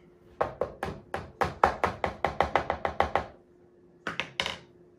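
Hand potato masher pounding boiled potatoes in a plastic bowl, a quick even run of strokes about five a second that stops a little after three seconds. Near the end, a brief crinkle of the butter's wrapper being handled.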